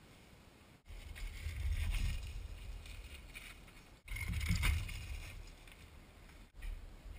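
Mountain bike riding down a dirt trail past the camera: a low rumble that swells and fades, broken by abrupt cuts about a second in, about four seconds in and near the end.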